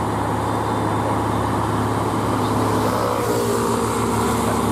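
UD Quester GWE 370 truck's diesel engine running as it rolls slowly toward the listener, growing slightly louder, with tyre hiss on wet asphalt rising about three seconds in.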